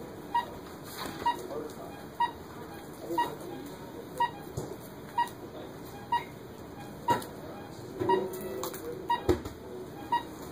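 Steady electronic beeping from a hospital bedside monitor, one short tone about every second, with a few soft knocks from handling.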